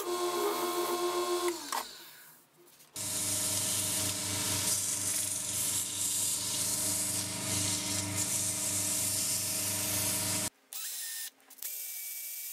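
Wood lathe running with a turning tool cutting the spinning wood, a steady hum under a hiss of shavings. After a brief drop it runs again with a steady hiss as the spinning piece is hand-sanded, and near the end a cordless drill whirs in short runs.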